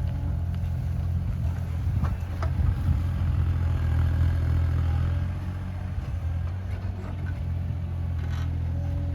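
Bobcat E37 compact excavator's diesel engine running steadily, growing louder from about two seconds in to about five seconds in as it works under load, with a couple of sharp clanks near two seconds in.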